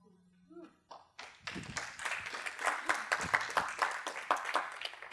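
A roomful of people applauding with quick, dense hand claps. The applause starts about a second in, builds, and cuts off abruptly at the end.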